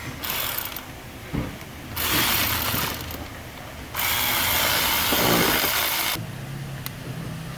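Ratchet wrench clicking in three runs as the new EGR valve's mounting bolts on a 5.7 Hemi are tightened down. The last run, about four to six seconds in, is the longest and loudest.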